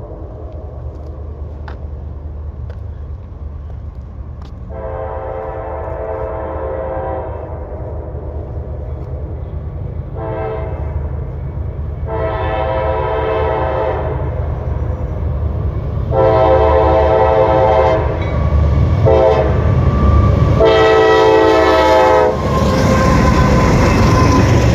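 CSX diesel freight locomotive's multi-chime air horn sounding several long and short blasts for a grade crossing as the train approaches, over a low engine rumble that grows louder. About two seconds before the end the lead locomotives pass close by in a loud rush of engine and wheel noise.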